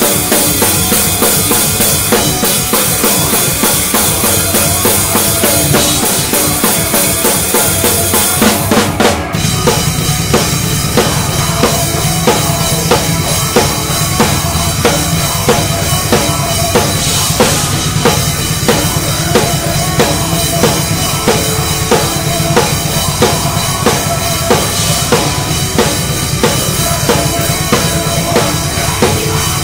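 Drum kit played hard at close range, kick, snare and cymbals driving a live band's song. About nine seconds in the playing breaks off for a moment and a new section starts with a heavier low end.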